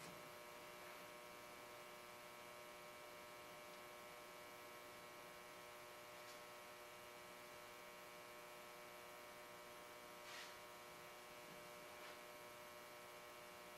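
Near silence: a steady, faint electrical hum, with one faint short tick about ten seconds in.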